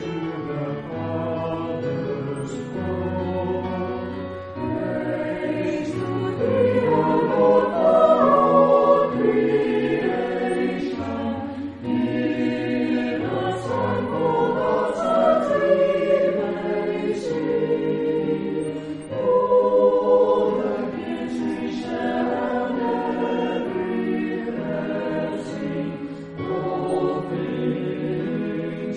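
A church choir singing a hymn.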